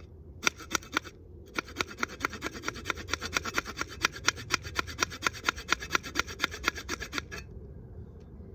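Saw edge on the high-carbon-steel 4Patriots Ready Shovel sawing back and forth across a dry wooden stick, its teeth rasping into the wood. A few trial strokes come first, then a quick, even run of about five strokes a second that stops about a second before the end.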